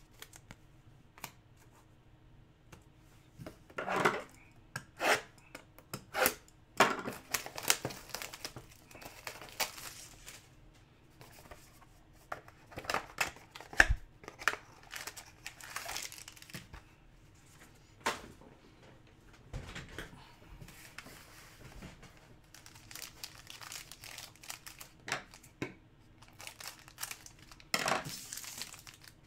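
A foil trading-card pack and its wrapping being torn open and crinkled by hand, in scattered bursts of rustling with short handling clicks. One sharp knock comes about halfway through.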